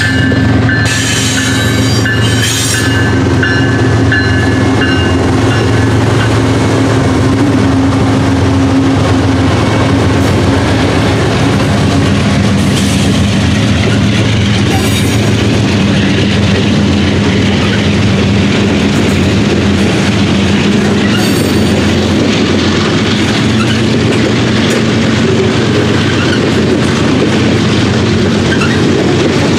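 CSX M648 freight train rolling through a grade crossing, its boxcars and tank cars passing close by. The wheels clatter over the rail joints over a steady, loud rumble.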